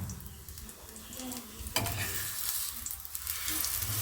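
Pancake batter sizzling in a frying pan while a spatula scrapes at it. There is a sharp knock against the pan a little under two seconds in, and the frying noise is louder after it.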